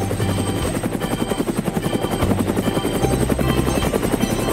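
Cartoon helicopter sound effect: a fast, steady rotor chop, over a simple backing tune.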